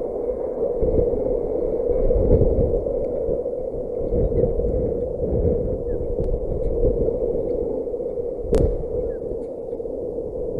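Wind buffeting an outdoor nest-camera microphone: a steady rushing with gusty low rumbles, and one sharp click a little over eight seconds in.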